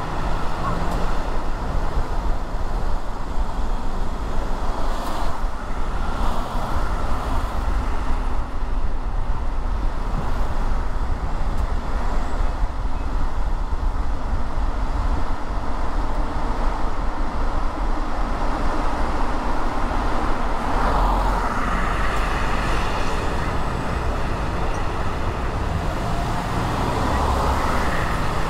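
Road traffic noise from a car driving on city streets: a steady low rumble with a hiss over it, swelling louder a few times.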